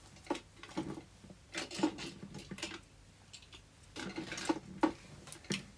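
Someone rummaging and handling small objects: an irregular run of light knocks and clatters, pausing briefly about halfway through.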